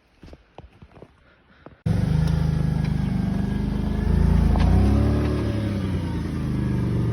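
A few faint taps, then about two seconds in a truck engine starts up loud and abruptly, running steadily and revving up and back down near the middle.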